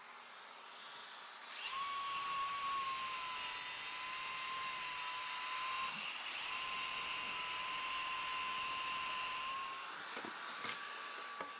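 Metabo plunge track saw running on its guide rail, crosscutting a plywood sheet with its dust extractor drawing through the hose: a steady high whine that winds down about ten seconds in.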